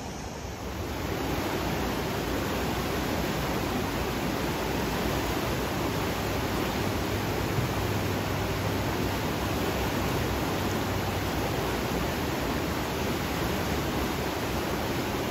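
Fast brown floodwater of a flash-flooded creek rushing and churning in a steady roar. It grows louder about a second in, then holds level.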